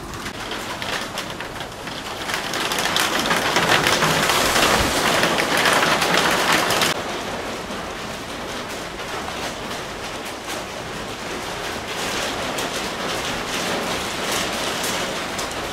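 Steady rain of a sudden summer shower, with many small drop hits. It grows louder a couple of seconds in, then falls suddenly to a softer, even rain sound about seven seconds in.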